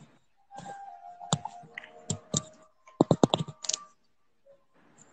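A series of sharp clicks and knocks close to the microphone, with a quick run of about six clicks around three seconds in.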